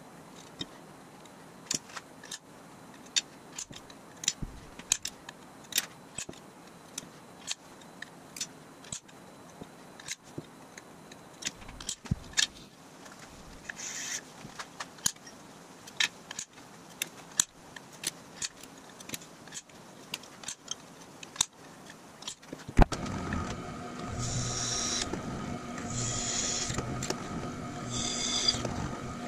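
Scattered light clicks and taps of hand measuring tools (dial calipers, steel square, scribe) handled on an aluminum bar. About 23 s in, a bench drill press motor starts and runs steadily, with several short high-pitched bursts as the bit cuts into a metal strip.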